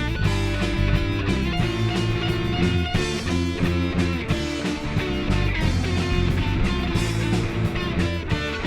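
Live punk rock band playing an instrumental break: electric guitars, bass and drums at a steady beat, with no vocals.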